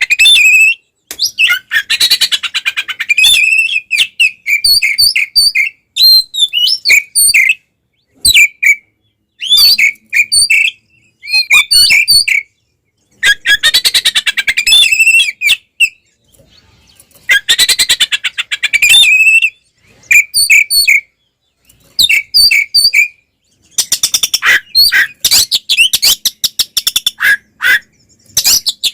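Oriental magpie-robin (kacer) singing loudly in an aggressive fighting-style song. Phrases of fast rattling trills a couple of seconds long alternate with strings of short, sharp whistled notes, with brief pauses between phrases.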